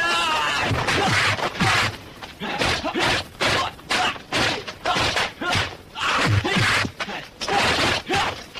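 Martial arts film fight: a rapid run of punch and kick impact sound effects, many in quick succession, mixed with the fighters' shouts and grunts, a rising yell right at the start.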